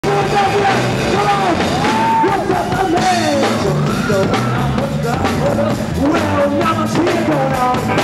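Rock band playing live: a male singer over electric guitar, bass guitar and drums.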